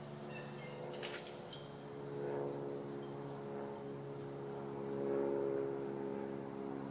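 Steady low hum of a running motor engine with several tones, swelling louder twice, with a couple of faint clicks about a second in.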